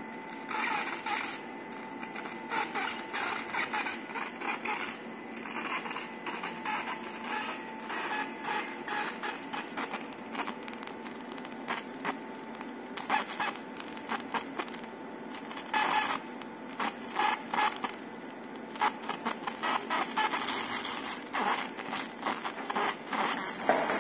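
JPT 100 W fiber laser marking machine engraving the coating of a blue cup: a steady hum with a thin steady whine, under an irregular crackling hiss as the laser spot burns the mark.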